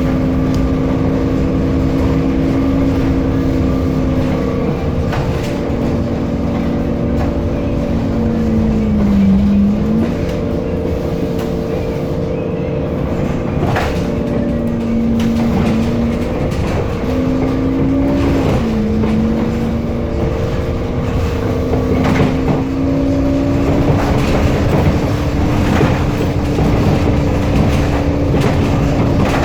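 Temsa Avenue LF city bus in motion: a strange tonal whine from the DAF engine and ZF Ecolife automatic drivetrain over a low rumble. The whine sags in pitch and springs back up a few times as the speed changes. Occasional knocks and rattles come from the body.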